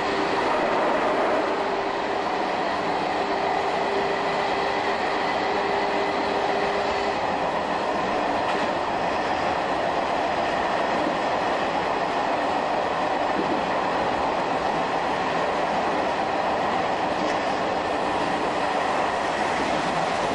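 Shin-Keisei 200 series electric train with nose-suspended traction motors, heard from the cab while running: a steady rumble of wheels and running gear, with a steady tone that stops about a third of the way in.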